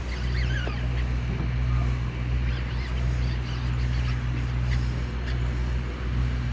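Boat engine running with a steady low hum, with faint high chirps over it.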